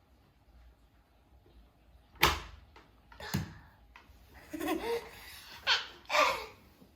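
Two sharp knocks about a second apart, followed by a few brief voice sounds.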